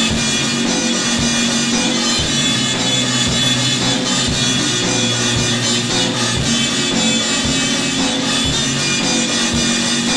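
Instrumental music: dense, sustained synth or organ-like tones over a steady drum beat, without vocals.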